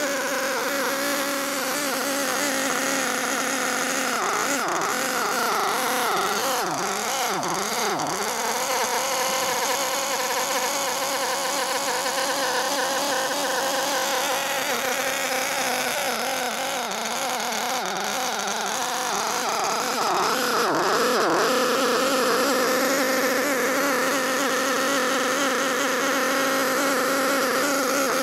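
Novarossi Kangaroo seven-port 1/8-scale glow-fuel engine running steadily on the stand during its break-in, a loud, high buzz. The tone warbles briefly a few seconds in and again about two-thirds of the way through.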